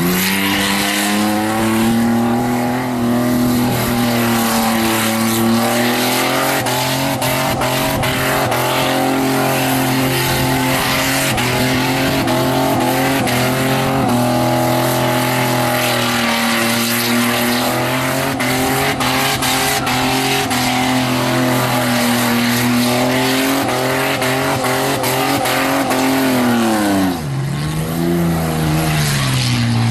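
Holden VN Commodore's Buick V6 held at high revs through a burnout, its note wavering as the spinning rear tyres squeal and scrub. About 27 seconds in the revs drop sharply and climb straight back up.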